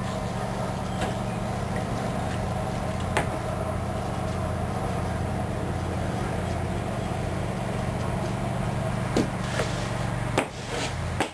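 A steady low machine hum with a few light knocks and clicks.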